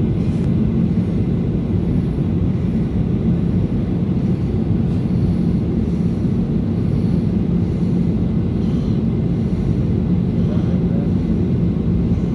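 Steady engine and airflow noise of a jet airliner heard inside the passenger cabin on approach, a low, even roar with a steady hum running through it.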